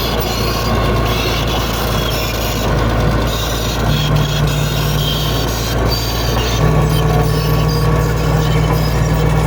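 Bulldozer working: its diesel engine running steadily under a constant metallic rattle, with the engine pitch stepping up about four seconds in and again near seven seconds.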